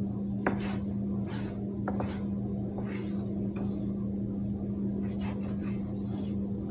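Knife cutting raw chicken breast into small pieces: irregular taps and slices against the board, two of them sharper with a brief ring, over a steady low hum.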